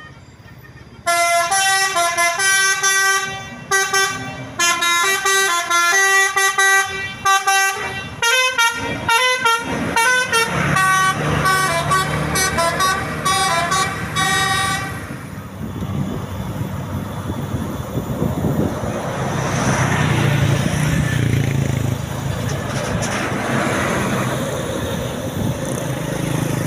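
Basuri telolet horn on a tour bus playing a melody of rapid, changing horn notes for about fourteen seconds, the notes coming faster toward the end. The tune stops suddenly and gives way to the rumble of the bus driving past.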